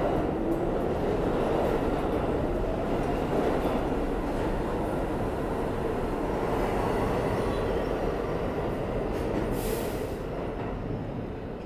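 R160 subway train pulling out of the station, a steady rumble of wheels on rail that eases off near the end. There is a short hiss about ten seconds in.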